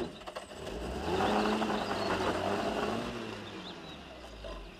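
A Mercedes-Benz 190 SL roadster's four-cylinder engine pulling away, swelling for a couple of seconds and then fading as the car drives off at speed.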